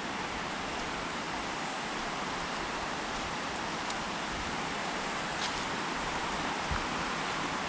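Steady rushing of water, an even hiss with no rhythm or breaks.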